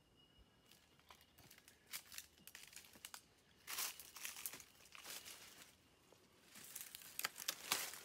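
Crunching and crinkling of dry leaf litter underfoot, in irregular bursts of rustles and sharp crackles, loudest about four seconds in and again near the end.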